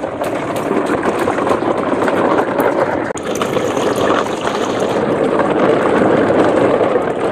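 Muddy water sloshing and swishing steadily as plastic toy dump trucks are pulled through it, with small plastic clicks and knocks mixed in.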